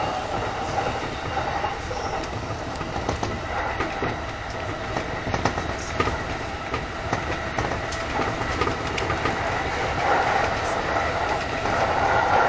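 Electric commuter train running along the track, heard from inside the front car: a steady rumble with irregular clacks as the wheels pass over rail joints.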